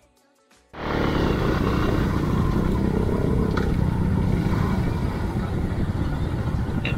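Motorcycle running on the move, a steady loud din of engine and road noise that cuts in abruptly under a second in, after a moment of quiet.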